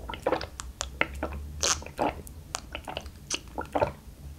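Close-miked gulping of iced barley tea from a glass: a quick series of swallows with wet mouth clicks, about four a second.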